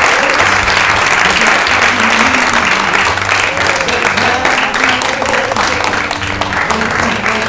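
Theatre audience applauding over exit music, the clapping thinning out near the end.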